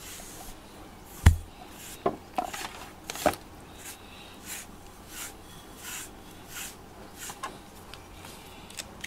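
Pet grooming brush raking through a cat's fur in a run of short rasping strokes, about one every two-thirds of a second, pulling out loose shed hair. A thump about a second in is the loudest sound.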